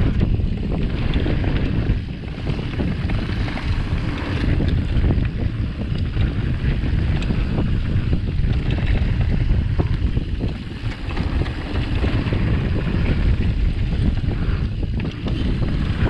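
Mountain bike riding down a dirt enduro trail: heavy wind noise on the microphone over the constant rumble of tyres on dirt, with a steady crackle of small clicks and rattles from the bike.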